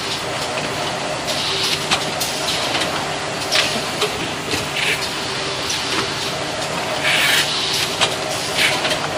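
Automatic toilet paper single-roll packing machine running: a steady motor hum with repeated short hisses and sharp clicks from its working mechanism, coming every second or two.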